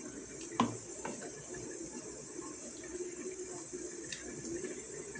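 A pot of red-bean stew bubbling at a simmer as a wooden spoon stirs through it, with a single sharp knock about half a second in.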